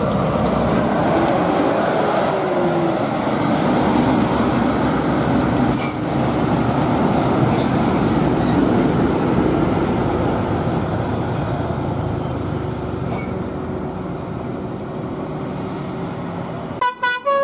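Mercedes-Benz OH 1626 coach passing close and pulling away up a winding road, its diesel engine running loud, then slowly fading over the last several seconds. Right at the end a musical telolet bus horn starts sounding.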